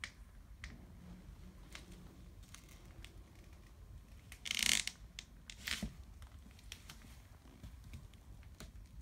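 Faint handling noise: scattered small clicks, with a brief rustling scrape about halfway through and a shorter one a second later.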